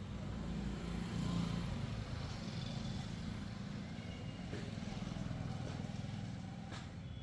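An engine running steadily with a low hum, and a sharp click near the end.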